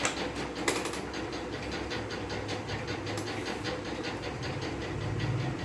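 Machinery running with a steady hum and a fast, even clatter of about six or seven beats a second.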